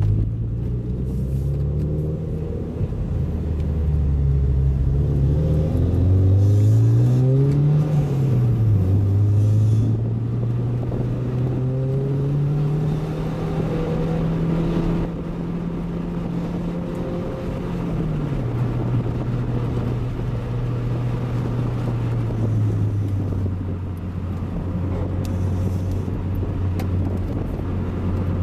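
A 1993 Toyota MR2's turbocharged 3S-GTE four-cylinder, heard from inside the cabin over steady road noise. The engine note climbs about six seconds in and drops sharply soon after, climbs slowly again and drops near the middle, then holds steady.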